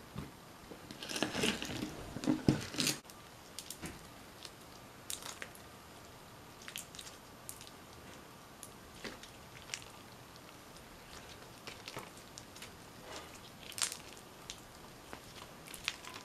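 Play-Doh crackle slime, clear with small beads, being stretched and squeezed by hand: a burst of wet squishing and crackling about a second in, then scattered small pops and clicks.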